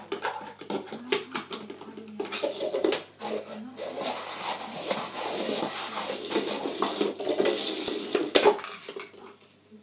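A puppy knocking and pushing an empty tub across a tile floor: a run of sharp clatters and knocks, turning to steadier scraping and rattling about four seconds in, with one loud knock about eight seconds in before it quiets.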